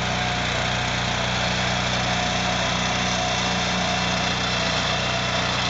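BCS 853 two-wheel walking tractor engine running steadily, driving a Berta rotary plow that cuts a furrow through the soil.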